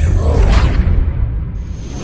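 Intro-sting sound effects under a countdown animation: a deep, rumbling bass with whooshing sweeps, and near the end a swelling hiss with a thin high tone.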